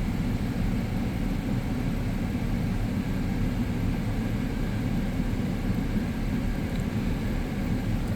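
Steady low rumble, with no distinct sounds standing out.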